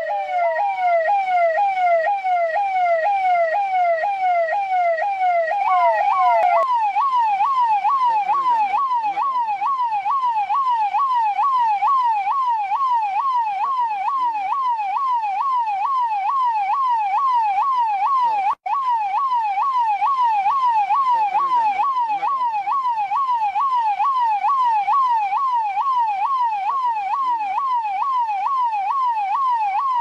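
Indian police siren sounding continuously in fast rising-and-falling sweeps. About six seconds in it switches to a higher, quicker sweep and keeps going, with a split-second cut-out about two-thirds of the way through.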